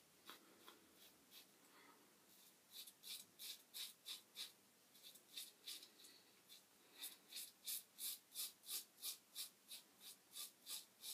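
Merkur 37C slant safety razor with a Treet carbon steel blade scraping through lathered stubble in short, quick, faint strokes, about three a second. The strokes start about two seconds in and pause briefly near the middle.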